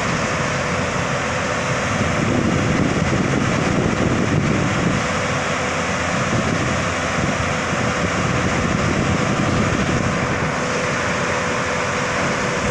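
Hyundai 215L crawler excavator's diesel engine running steadily under load as the machine tracks down off a low-bed trailer, with a steady tone held above the engine noise.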